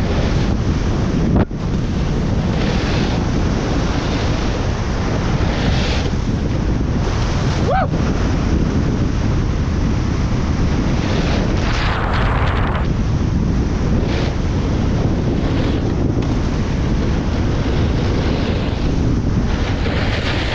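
Wind buffeting a head-mounted action camera's microphone as a snowboarder rides fast down a groomed run, with the board's edges scraping across packed snow in surges as it turns.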